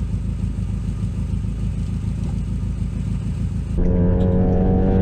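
Honda Civic EK hatchback running: a steady low rumble. About four seconds in, a sudden cut brings a louder, clearly pitched engine note that climbs as the car accelerates.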